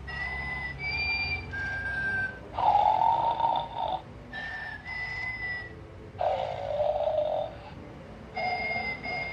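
Snoring Totoro toy giving its cartoon-style snore: a snore followed by a whistle of a few short notes, the pair repeating about every three and a half to four seconds.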